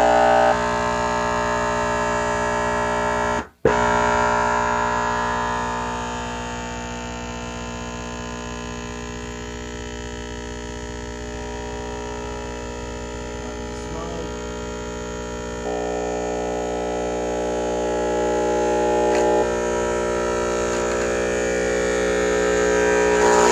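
Digital Designs Z95 subwoofer wired straight to mains power, its overheating voice coil driven by wall-socket AC: a loud, harsh, steady hum-buzz with many overtones. It drops out briefly about three and a half seconds in and comes back with a click, its tone shifts several times as the coil burns, and it cuts off suddenly at the very end.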